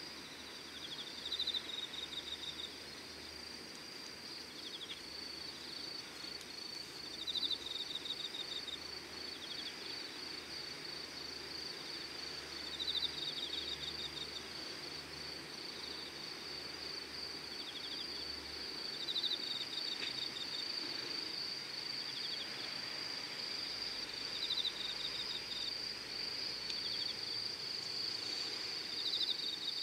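Insects singing: one keeps up a steady high shrill trill, while another gives a short, rapidly pulsed chirping phrase about every five to six seconds.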